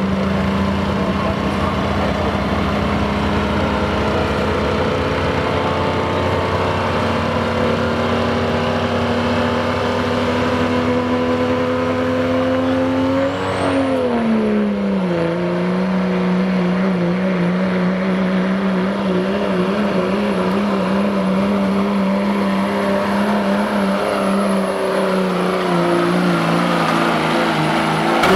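Turbocharged diesel pickup engine held at high revs on the start line, its pitch slowly climbing, then dipping about halfway through. A high, steady turbo whistle comes in at that dip and holds.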